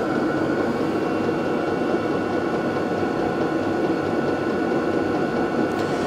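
Vevor 12 V 8 kW diesel air heater running steadily at its highest heat setting: an even whirring hum of its blower and burner with a thin high whine over it.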